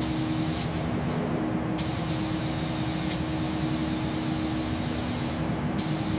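Paint spray gun hissing steadily as primer is sprayed, with a steady low hum underneath.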